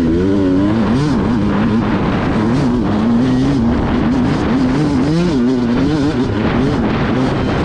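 Dirt bike engine being ridden on a trail, its revs rising and falling constantly as the throttle is worked.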